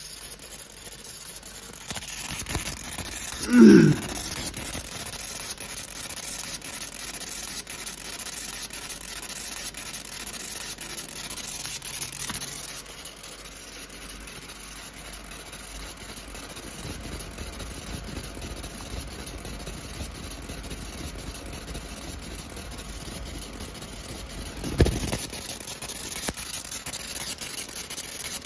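60 W fiber laser marking machine cutting 0.15 mm stainless steel sheet: a steady high hiss as the beam burns through the metal, with a fan blowing across the work. A short sound falling in pitch about four seconds in is the loudest moment, and there is a single knock near the end.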